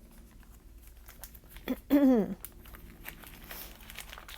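Plastic kit packaging crinkling and rustling as it is handled, with scattered small clicks. About two seconds in comes a brief vocal sound that falls in pitch, the loudest moment.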